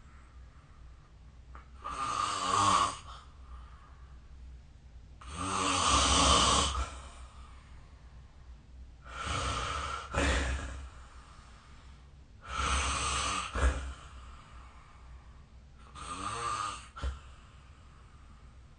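A person snoring in sleep: five rasping snores, one on each in-breath, about every three and a half seconds, with quiet breathing between them and a short sharp click near the end of two of them. Recorded through a phone's microphone.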